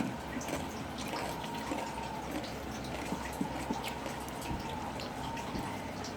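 Someone chewing chicharon, with small wet mouth clicks and smacks scattered through, over a low steady hum.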